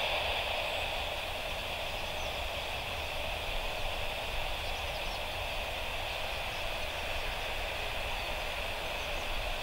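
Steady hiss of an air traffic control radio channel left open between transmissions, settling to an even level after the previous call fades out.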